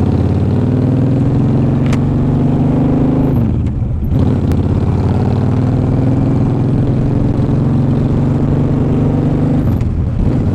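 2008 Honda Shadow 750 C2's V-twin engine running under way, heard through a helmet-mounted lapel mic. The steady engine note drops out briefly about three and a half seconds in and again near the end, then picks up again.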